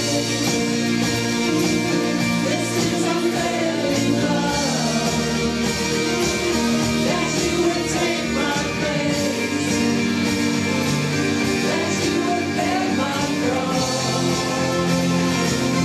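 A song with singing over sustained instrumental backing, at a steady level.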